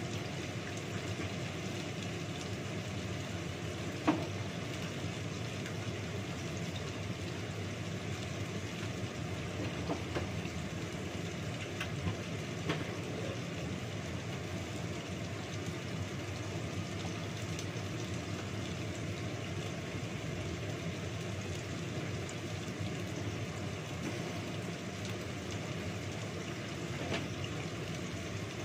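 Steady whirring hum of a kitchen range hood fan, with a few sharp clinks of kitchenware, the loudest about four seconds in.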